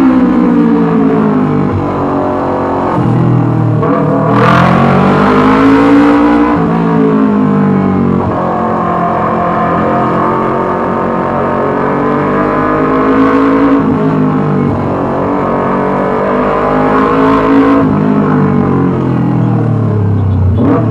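Yamaha R25's 250 cc parallel-twin engine running through a loud Racefit Slash aftermarket exhaust, its revs rising and falling several times.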